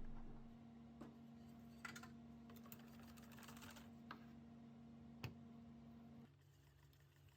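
Near silence: faint room tone with a low hum and a few scattered light clicks and taps.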